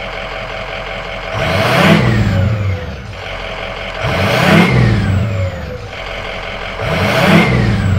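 Ford Excursion's turbo-diesel V8, warm, revved three times from idle, each blip rising and falling off again with the turbo whistle dropping in pitch as it spools down.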